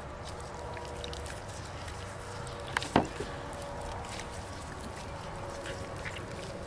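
Faint wet, sticky squishing of homemade Elmer's glue and borax slime being squeezed and kneaded in rubber-gloved hands, over a steady low background rumble. Two sharp clicks come close together about three seconds in.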